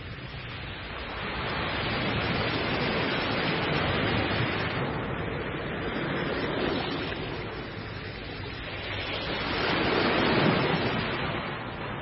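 Sea waves washing and breaking: a continuous rush of surf that swells louder twice, once a few seconds in and again near the end.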